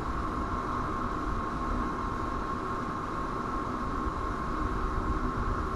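Steady background rumble and hiss on an outdoor nest-cam microphone, with a thin constant whine running through it and no bird calls.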